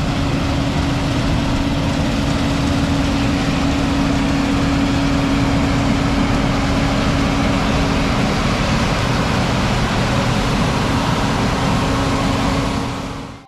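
Large farm machine engine running steadily, with a constant whine over the engine noise; it fades out near the end.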